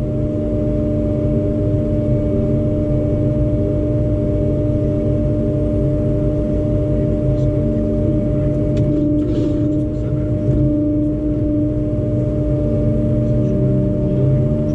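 Liebherr 912 excavator's engine and hydraulics running steadily, heard from inside the cab: a constant low engine hum with a steady hydraulic whine held on top.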